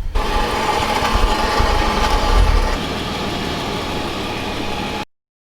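Toyota Prado running, a steady engine and vehicle noise with a low rumble that swells briefly around two seconds in; it cuts off suddenly about five seconds in.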